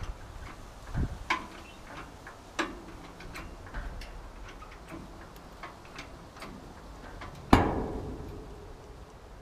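Steel hull and lifting chain straining on an engine hoist as the hull is raised: scattered sharp metallic clicks and creaks, then one loud metal clank about seven and a half seconds in that rings out for about a second.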